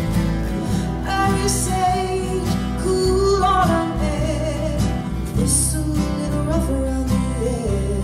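Live folk band playing: strummed acoustic guitars with mandolin, bass and organ, and a voice singing the melody.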